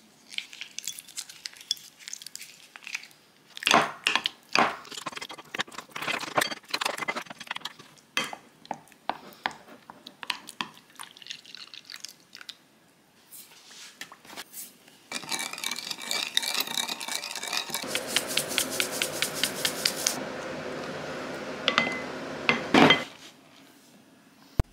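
Kitchen clatter of dishes and utensils: scattered clinks and knocks at first, then from about midway a quick, even run of ticks over a steady noise, which stops shortly before the end.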